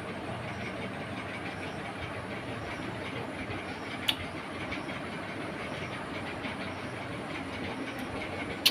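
Steady rushing background noise, with two short sharp clicks, one about four seconds in and one at the end.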